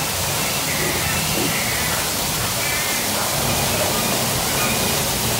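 Rainforest ambience of a ride scene: a steady rush of falling water with short bird calls over it, above a low hum.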